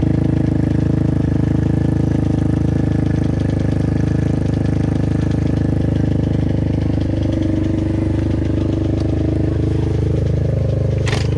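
Pit bike's small single-cylinder engine idling steadily, its pitch creeping up slightly in the second half. A brief hiss comes near the end.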